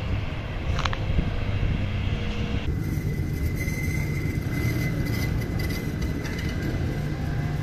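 Low steady rumble of a tram on street track. The sound changes abruptly about three seconds in, where a steady high whine joins the rumble as the tram approaches.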